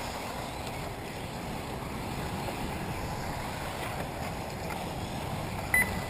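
Steady wind noise on the microphone over the faint running of electric 1/8-scale off-road RC buggies on the track. A short, high beep sounds near the end.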